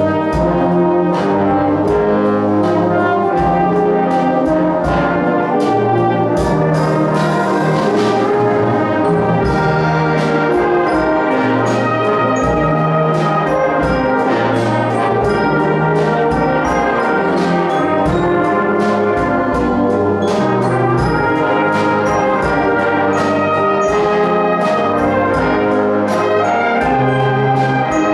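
A brass band playing a concert piece, with held brass chords over a drum kit that keeps striking beats throughout.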